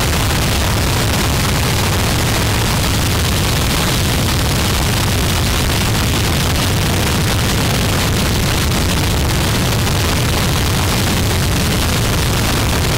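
Harsh noise music: a loud, unbroken wall of distorted static with no pauses or rhythm, heaviest in the deep low end.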